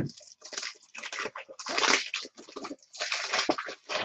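Plastic packaging and card supplies being handled and rummaged through, in a run of short crinkling, rustling bursts.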